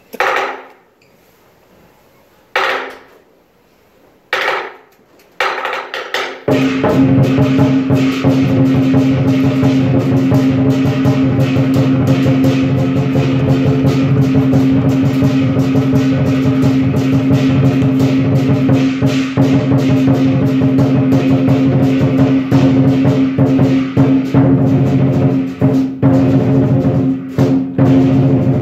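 Lion dance percussion: a large Chinese lion drum with clashing cymbals. A few single strikes ring out in the first seconds, then from about six seconds in the ensemble plays a loud, fast, continuous beat.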